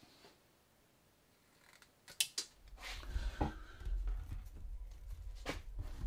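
Bench handling noises: a few sharp clicks and knocks of small parts over a low rumble that starts about halfway through.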